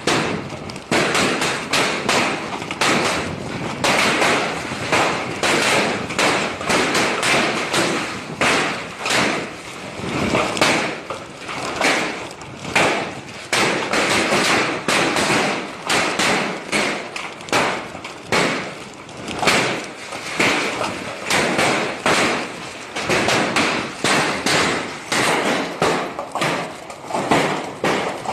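Large hailstones pelting down in a dense, unbroken barrage of thuds and taps.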